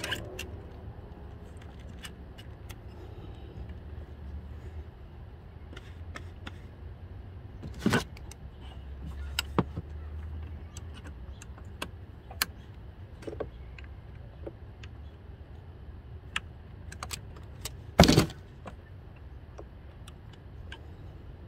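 Scattered metallic clicks and clinks of pliers and hose clamps as rubber hoses are worked loose around a car's turbocharger, with two louder knocks, one about eight seconds in and one near eighteen seconds. A low steady hum runs underneath.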